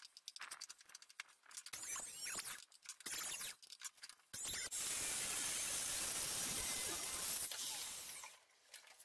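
Several short, wavering squeaks as a long timber blank is moved about on a wooden workbench, then a steady hiss lasting about four seconds that stops near the end.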